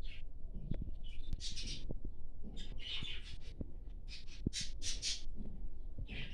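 Diamond dove chick begging while being hand-fed: short hissy squeaks at irregular intervals, with soft clicks between them.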